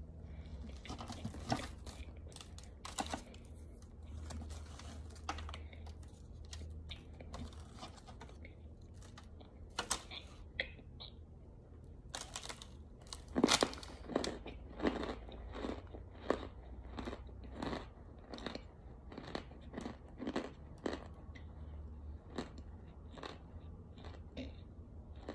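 Chunks of pressed cornstarch brick being bitten and chewed: a long string of sharp, dry crunches, coming faster and loudest from about halfway through.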